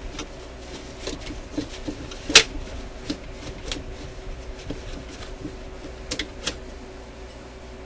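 Scattered small clicks and ticks as the metal parts of a record-player changer mechanism are handled and wiped with a paper towel to clear dried-up old lubricant. One sharper click comes a little over two seconds in. A faint steady hum runs underneath.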